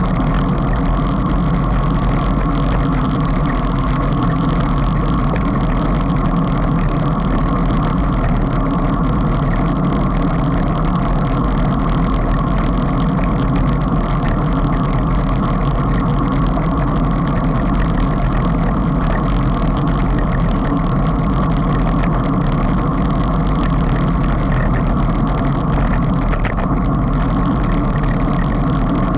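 Steady rush of wind over a bicycle-mounted camera's microphone, with road noise, while riding at about 30 km/h.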